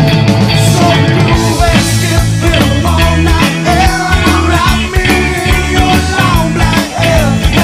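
Loud rock music with drums keeping a steady beat.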